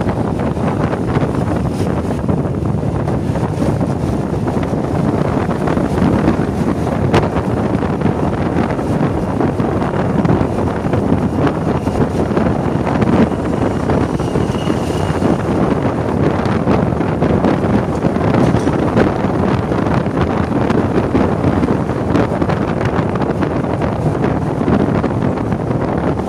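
Wind buffeting the microphone over steady vehicle and road noise while riding along.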